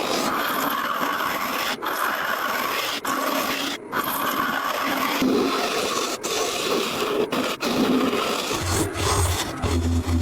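Steady scraping and rubbing of a hand tool or abrasive working a wooden surface, broken by brief gaps every second or so. A low hum comes in near the end.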